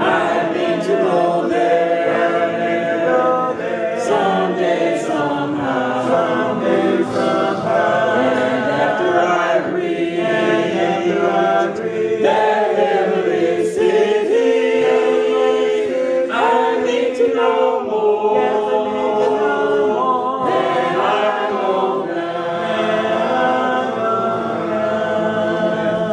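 Congregation singing a hymn a cappella, a man's voice leading at the microphone over many voices, with no instruments.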